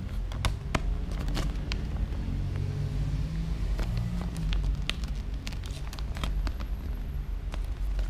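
Paper instruction leaflet crinkling and crackling as it is handled, in scattered sharp crackles, over a steady low rumble.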